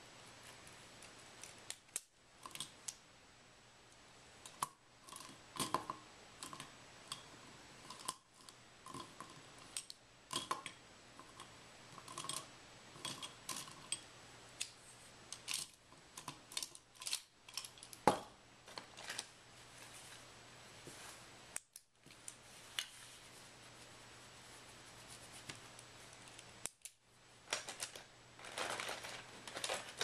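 Scattered small clicks and taps of small objects being handled, irregular and a few a second at their busiest, with one sharper click about eighteen seconds in and a short rustle near the end. A faint low hum runs underneath.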